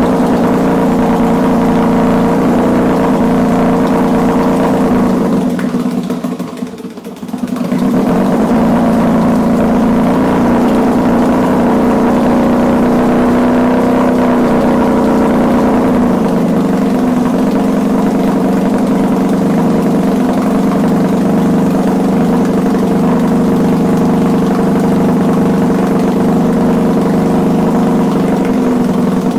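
1965 Evinrude Fisherman 6 hp two-stroke outboard running steadily at a low idle while the idle is being turned down. Its sound drops away for a moment about six seconds in, then comes straight back.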